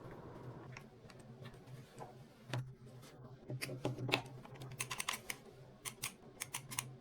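Hands handling and securing the plastic water-pipe fittings of a cordless pressure washer: irregular light clicks and taps, coming faster in the second half, over a faint low hum.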